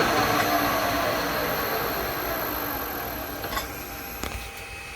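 Bridgeport milling machine spindle coasting down after being switched off, its hum falling in pitch and fading steadily. A high whine cuts out about four seconds in, with a couple of light clicks near the end.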